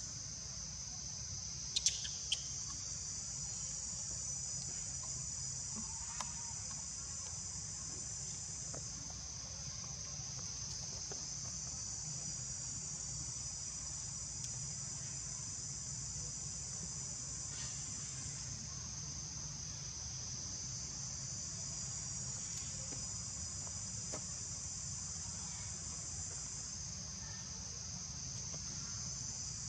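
Steady high-pitched chorus of insects shrilling without a break, over a low steady rumble, with a couple of sharp clicks about two seconds in.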